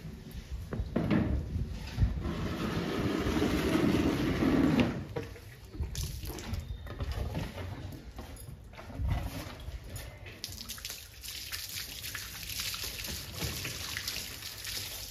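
Water from a garden hose splashing on wet concrete and pouring over a dog's coat. It is loudest for a few seconds near the start, then becomes a thinner hiss of spray in the later part.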